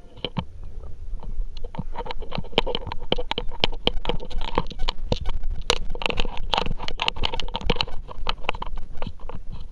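A dog chewing and biting, heard up close from a camera strapped to its harness: a dense, irregular run of crunches and clicks.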